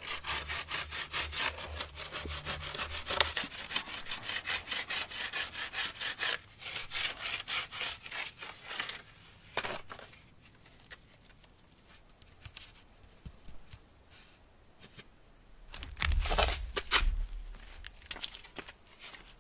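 Wooden stick ground back and forth against a granite boulder to shape it into a tool, a rapid scraping rasp that stops about nine seconds in. Near the end there is a louder rustling crunch, as of dry palm fronds underfoot.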